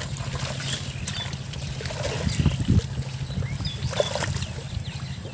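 Pond water sloshing and splashing as people wade through thick water hyacinth, with a few stronger splashes about two to three seconds in, over a steady low rumble.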